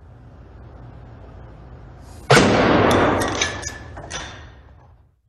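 Grain dust explosion in a small demonstration model: about two seconds in, a sudden loud whoosh-bang, followed by a few sharp cracks over the next two seconds before it dies away.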